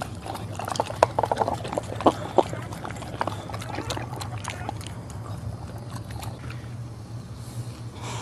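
Boxer mother licking a newborn puppy and its wet birth sac: a run of wet smacks and clicks, loudest in the first few seconds, over a steady low hum.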